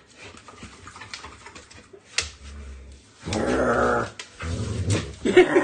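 German Shepherd puppy play-growling, in two loud bouts starting about three seconds in.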